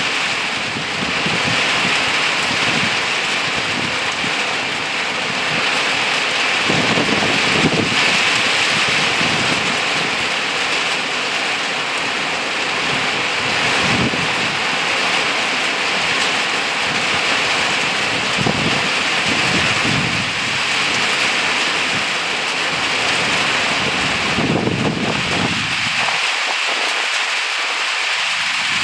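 Rain shower falling steadily on leaves and undergrowth, a dense even hiss. Several low rumbles swell and fade beneath it.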